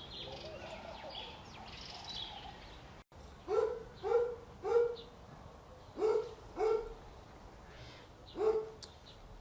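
A dog barking six times in short groups: three quick barks, then two, then a single one. Before the barks, birds chirp faintly.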